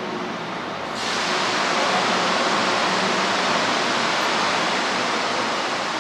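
Steady hiss of glassblowers' gas burners running in a lampworking workshop. It gets louder and brighter about a second in.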